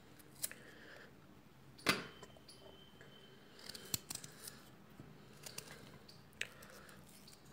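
Small knife cutting into a raw amla (Indian gooseberry) held in the hand, working around the stone: faint scattered clicks and crunches of the blade in the firm fruit, the loudest about two seconds in.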